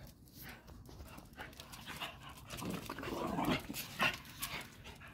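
Patterdale terriers play-fighting: panting and scuffling, with short sharp clicks and scrapes throughout and a louder, rougher stretch of breathy noise about halfway through.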